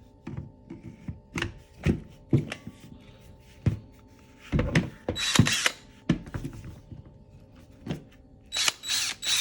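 Cordless drill with a blade-sharpening bit, handled with scattered clicks and knocks, then run in short spins, once about halfway through and again near the end.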